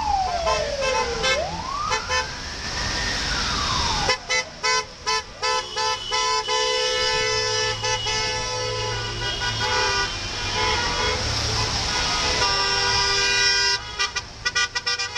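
An ambulance siren wails, sweeping down, up and down again over the first four seconds. Then many car horns honk together, a mix of long held notes and short repeated toots, over the rumble of slow traffic.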